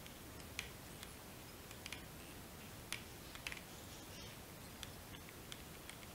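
Faint, irregular light clicks and ticks from hands working tying thread and materials on a small fly at the vise, over a low room hiss.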